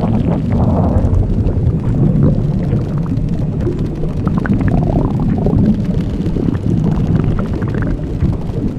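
Blueberry-inflation sound effect: a continuous low rumble with scattered small crackles, standing for a body swelling up like a blueberry.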